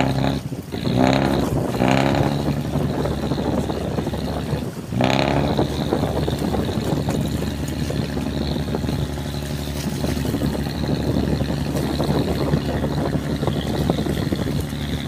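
A boat's diesel engine running steadily, its revs rising and falling briefly about a second, two seconds and five seconds in.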